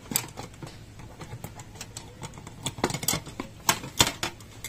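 Irregular clicks and knocks as a T8 fluorescent tube is twisted into its lampholders and wires are handled against the sheet-metal fixture housing, with the loudest knocks about three and four seconds in.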